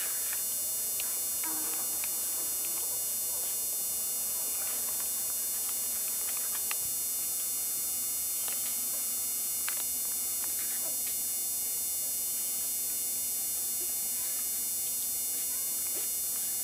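Steady electrical hum with a high-pitched whine, unchanging throughout, with a few faint clicks.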